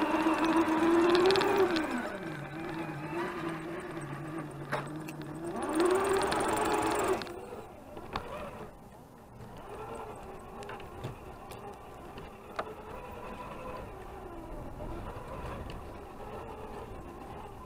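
Electric motor and gear drivetrain of a radio-controlled scale crawler truck whining, its pitch rising and falling with the throttle. About seven seconds in the loud whine cuts off, and a fainter, wavering whine with a few sharp clicks goes on.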